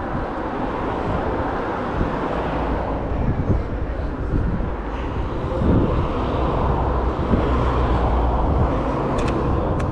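City street traffic noise: a steady rumble of passing cars that swells a little past the middle, with a few short clicks near the end.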